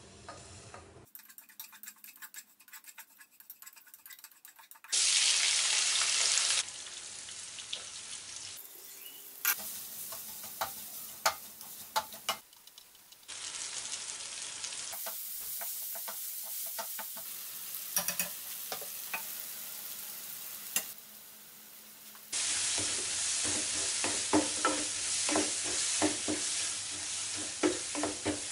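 Onion, tomato and carrot masala frying in oil in a non-stick pan, sizzling steadily while a spatula knocks and scrapes against the pan as it is stirred. The sound changes abruptly several times, and the sizzling is loudest near the end.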